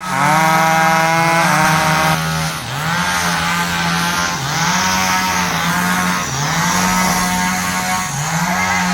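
Engine running hard and steadily, its pitch dipping briefly and recovering about every two seconds. A second, higher tone sounds over it for the first two seconds and then stops suddenly.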